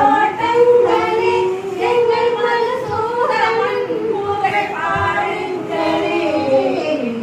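An elderly woman singing a song unaccompanied into a microphone, holding long notes and gliding slowly between them.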